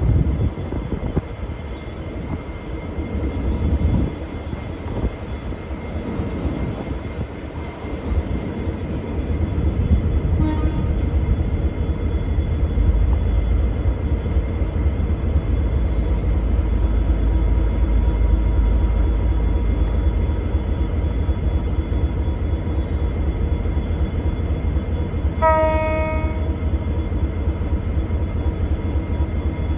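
V/Line VLocity diesel multiple unit departing, its engines running with a deep rumble that grows louder from about nine seconds in. Its low-note horn gives a brief faint toot about ten seconds in and a clear blast of about a second near the end.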